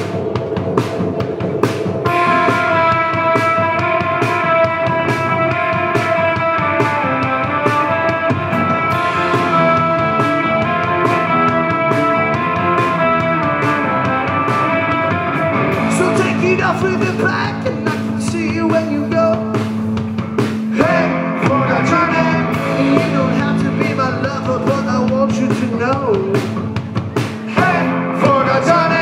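Live rock band playing at full volume: electric guitars, bass guitar and drum kit keeping a steady beat. About halfway through the part changes, with a held low bass note underneath.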